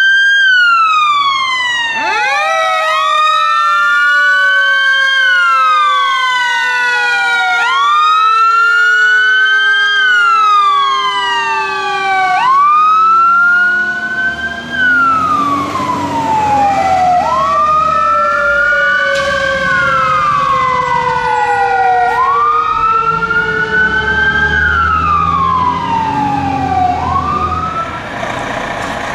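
Fire engine siren sounding a wail, each cycle rising and then falling about every two and a half seconds. A second, lower siren tone falls slowly through the first half, and diesel engine rumble comes in during the second half.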